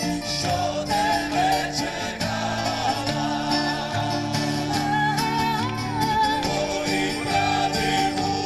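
Background music: a song with a singing voice over guitar accompaniment and sustained low notes.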